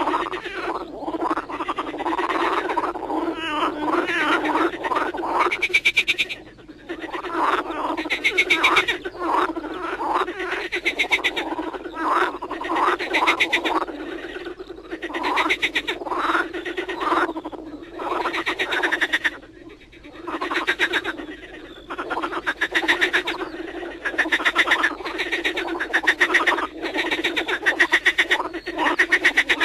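Chorus of many frogs calling together, overlapping rapid pulsed croaks and trills repeating every second or two over a steady low hum of calls.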